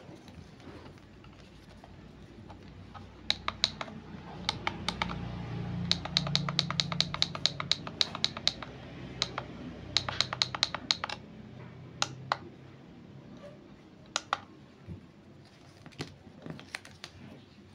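Plastic push buttons on a handheld electric digital therapy massager clicking as they are pressed, singly and in quick runs of several presses a second, with the longest run of about two and a half seconds near the middle.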